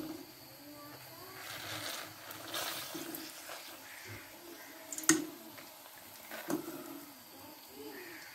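Pappadams deep-frying in hot oil in a wok-like pan: a bubbling hiss that swells and fades, with two sharp metallic knocks about five and six and a half seconds in.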